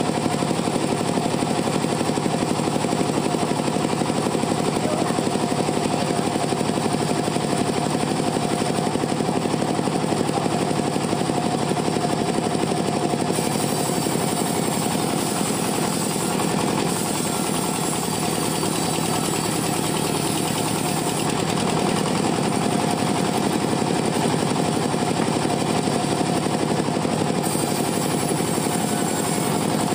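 Two-stroke chainsaw running at full throttle and cutting through teak wood, with a steady fast rattle. It gets slightly brighter about halfway through.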